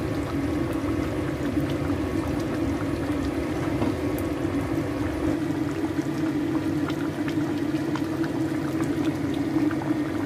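Thick curry sauce with pork trotters simmering in a pan, bubbling with many small pops over a steady low hum.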